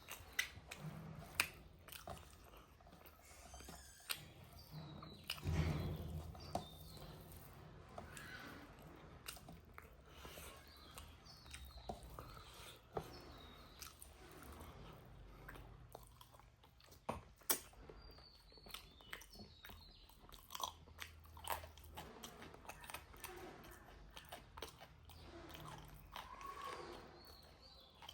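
A person chewing and biting pork close to the microphone, with many scattered short wet mouth clicks and a louder stretch of chewing a few seconds in.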